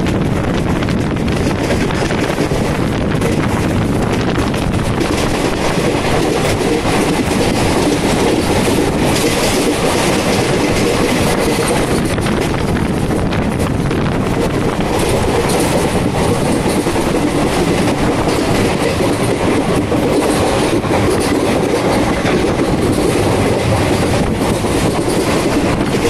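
Passenger train running at speed, heard from an open coach doorway: a steady, loud rumble of the wheels on the rails.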